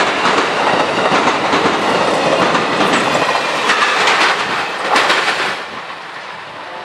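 Amtrak passenger cars rolling past at speed, their wheels clacking rhythmically over the track. The noise drops away sharply about five and a half seconds in as the last car passes and the train recedes.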